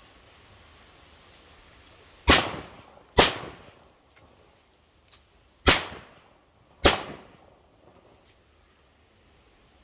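1960er Retro Chinaböller D firecrackers (category F2, 4.2 g of black powder each) exploding: four sharp bangs about two seconds in, two close together, then two more close together a couple of seconds later, each with a short echo, and one small pop between them.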